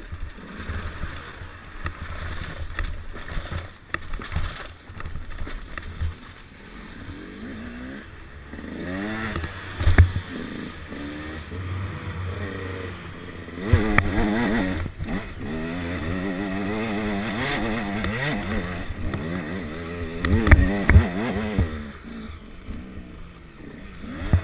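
Enduro motorcycle engine revving up and down as the bike is ridden over rough ground, picked up by a helmet camera. A few loud knocks break through it, about ten, fourteen and twenty seconds in.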